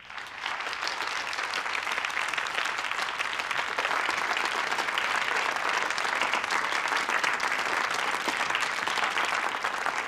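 Audience applauding: the clapping breaks out suddenly from silence, swells within the first second, then holds steady.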